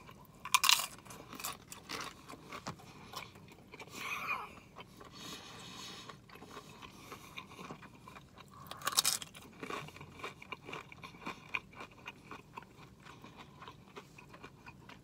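Tortilla chips being bitten and chewed close to the microphone: crisp crunching, with two louder bites about half a second in and about nine seconds in.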